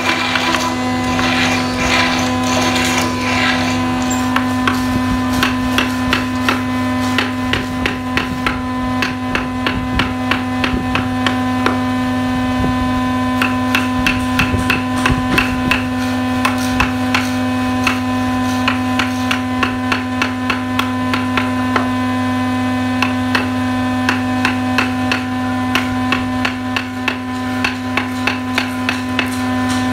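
Wooden mallet tapping a carving chisel into hardwood, cutting a flower outline by hand: quick, regular taps, a few a second, over a steady hum.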